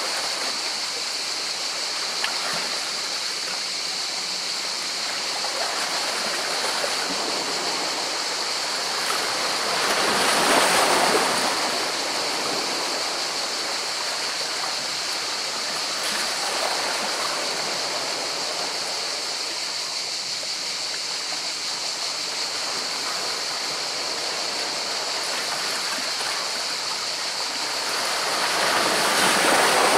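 Sea surf washing against rocks: a steady rush of water, with a wave breaking and swelling louder about ten seconds in and another near the end.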